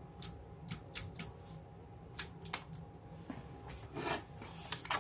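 Olivetti Lettera 31 portable typewriter's mechanism clicking as its keys and levers are tried: a scattering of light, irregular clicks, with a slightly louder clack near the end.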